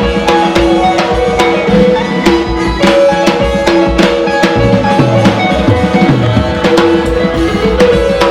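Music with a steady, evenly spaced drum beat over sustained instrumental notes and a bass line.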